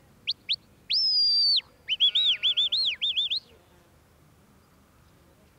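Shepherd's whistle commands to a working Border Collie: two quick rising chirps, a long held high note, then a rapid run of warbling up-and-down notes, ending about three and a half seconds in.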